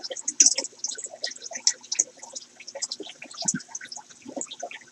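Water in a homemade filter tote trickling and dripping in quick, irregular little splashes, with a faint steady hum underneath.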